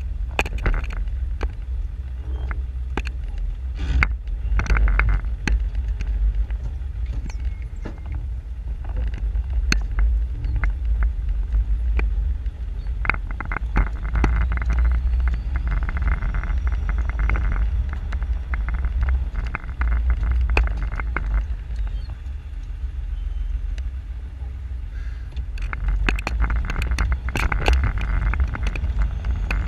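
Old Range Rover driving over rough off-road ground: a steady low rumble from the vehicle, with many short knocks and rattles from the bumps, and louder noisy stretches about halfway through and near the end.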